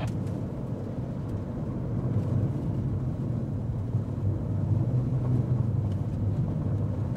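Steady low drone of a car in motion, heard from inside the cabin: engine and road noise.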